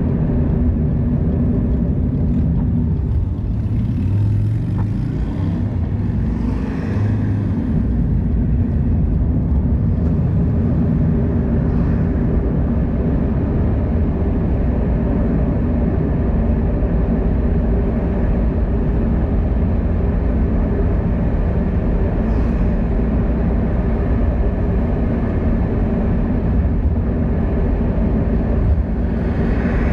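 Steady low road-traffic rumble, with a vehicle passing about seven seconds in and another near the end.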